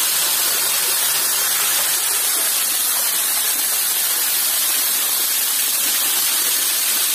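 Waterfall rushing steadily, water streaming down a rock face and splashing onto the rocks below, with a bright hiss.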